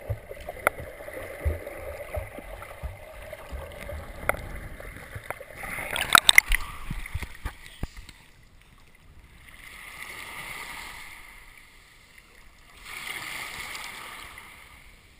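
Shallow seawater heard by a camera at the waterline: muffled underwater sloshing with scattered small clicks, then a burst of splashing about six seconds in as the camera comes up out of the water. After that come two small waves, each swelling and fading as it washes up the sand.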